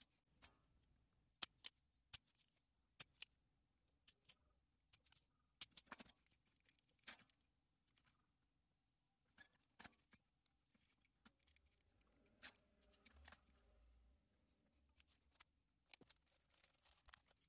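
Faint, irregular clicks and taps of small hand work with a soldering iron and circuit-board parts, as electrolytic capacitors are desoldered from a tachometer circuit board and set down on the workbench.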